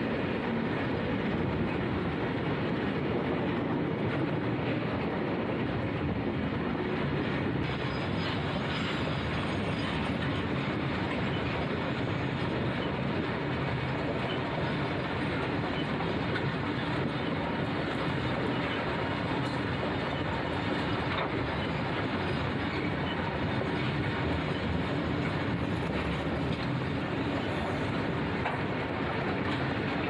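A long train of railway wagons running along the line, a steady rumble that holds without a break.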